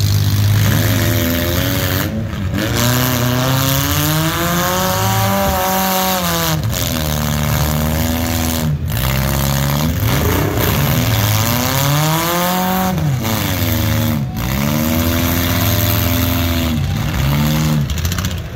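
Demolition derby compact cars' engines revving hard, several at once, their pitch rising and falling again and again. The sound is loud throughout.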